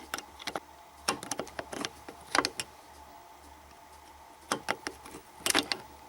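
Hand tools clinking and knocking against a small motorcycle engine's casing and parts during disassembly, in irregular clusters of sharp metallic clicks.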